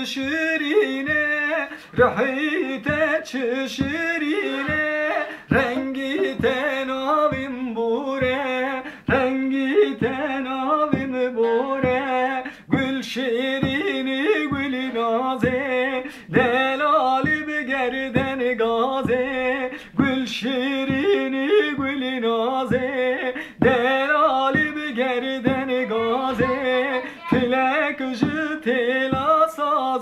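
A man sings a Kurdish folk song and accompanies himself on a bağlama (saz). The strummed strings keep a steady, even beat under the voice.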